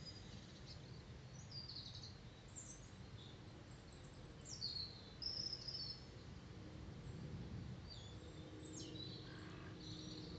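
Small birds chirping and calling on and off, with short high notes and quick falling whistles, over a steady low background rumble.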